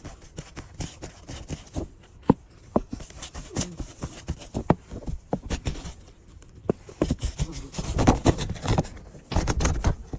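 Kittens at play, their paws and claws making an irregular run of light taps, scratches and knocks on a hard surface, busier near the end.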